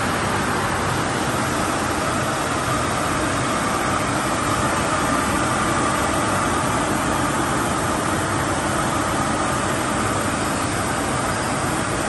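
Industrial glass washing machine running, a steady, unbroken whirring rush from its conveyor drive, brushes and high-power air-knife blowers.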